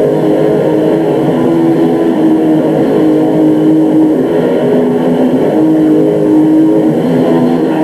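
Black metal band playing live: a dense, loud wall of distorted electric guitar with long held notes that change pitch every second or so.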